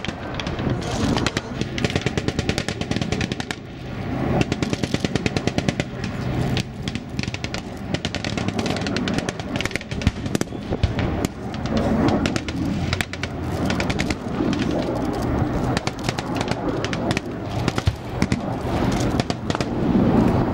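Rapid bursts of machine-gun fire, repeated throughout, over a steady low engine hum.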